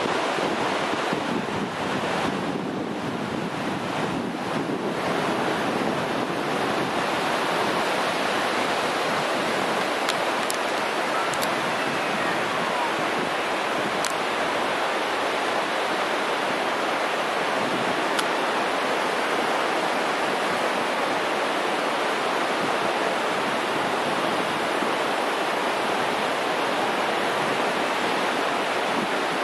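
Ocean surf breaking and washing up on a sandy beach, a steady rushing noise, with wind blowing on the microphone.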